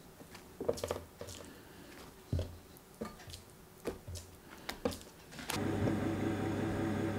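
Soft taps and light knocks as slices of firm tofu are laid into a small paper-lined stainless steel pot, a handful of separate touches. About five and a half seconds in, a steady pulsing drone starts suddenly and runs on.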